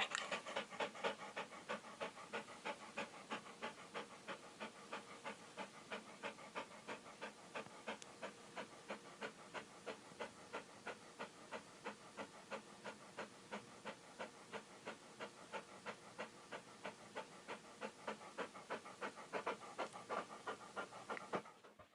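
Dog panting rapidly and evenly, about four breaths a second.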